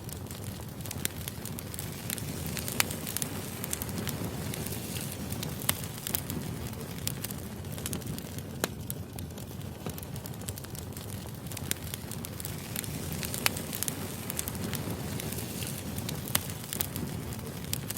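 Wood fire burning with a steady low rumble and irregular crackles and sharp pops, a few louder pops standing out.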